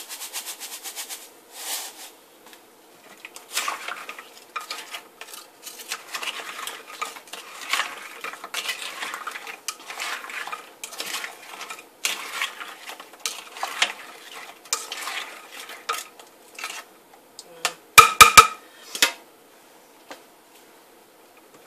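A white plastic spoon stirs and scrapes frozen goat milk cubes around a glass bowl while lye is mixed in for cold process soap. The ice cubes clink and knock against the glass in irregular clatters. A short fine patter at the start comes as lye is poured from a cup, and near the end there are a few loud ringing knocks on the bowl.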